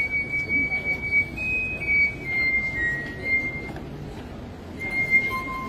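Glass harp: water-tuned wine glasses with their rims rubbed by wet fingers, each glass singing a sustained high note. A slow run of single notes steps up and down in pitch, pauses briefly, then ends with a higher and a lower note sounding together.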